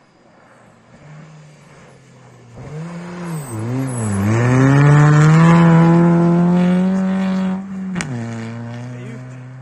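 First-generation Ford Focus rally car passing close at full throttle on a snowy gravel stage. Its engine note wavers as it goes by, then climbs and holds high and loud as it accelerates away. About eight seconds in, a sharp crack comes as the pitch drops at a gear change.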